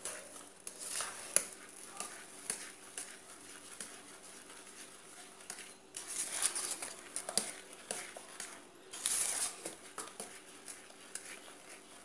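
A wire whisk stirring a thick chocolate batter in a stainless steel pot: soft, irregular swishing and scraping against the metal, with a few louder passes about halfway through and again a little later.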